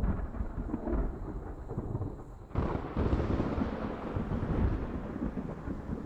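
Thunder rumbling low and continuous. About two and a half seconds in the sound changes abruptly and a rushing hiss joins the rumble.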